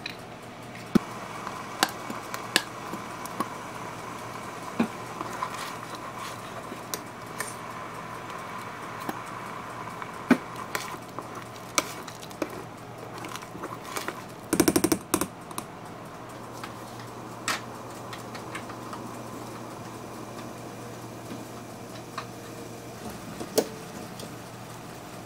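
Plastic spoon stirring soup in a metal cooking pot, knocking against the pot's sides in scattered sharp taps, with a quick rattling run of knocks about halfway through.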